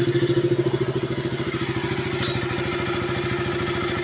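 KTM RC 200's single-cylinder four-stroke engine idling steadily with an even pulse, its valve clearances freshly reset so only the normal light valve tick remains.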